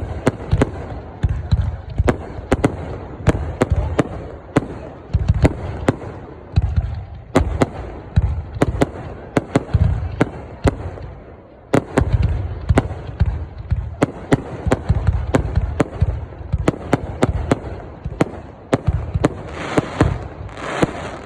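Aerial fireworks bursting in quick succession: sharp bangs several times a second over a low rumbling boom, growing louder and denser near the end.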